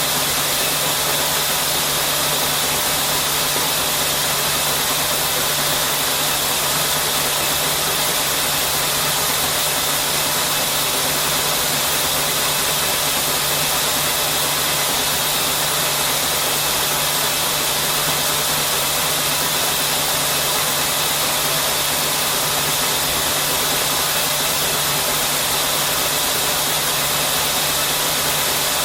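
Textile knitting machine running steadily: a dense, even mechanical whir and hiss over a low steady hum.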